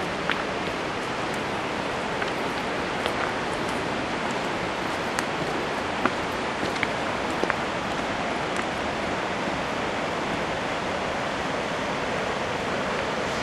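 Steady rush of falling water from a waterfall and creek, with a few faint clicks of footsteps on the trail scattered through it.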